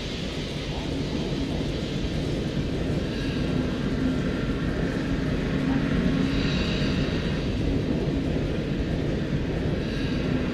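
Steady low rumble of a city street ambience, slowly growing louder, with faint high tones coming in about the middle and again near the end.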